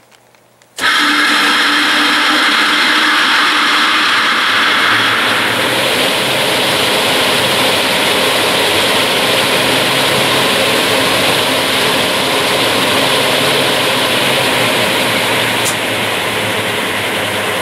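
Cook 50 HP steel centrifugal exhaust blower running: a loud, steady rush of air and machinery that cuts in suddenly about a second in and holds even throughout. A tone in it fades out after the first few seconds. The unit runs very well.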